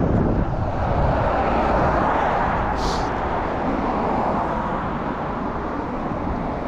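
Road traffic on the street alongside: a steady rush of cars passing that slowly fades, with a brief high hiss about three seconds in.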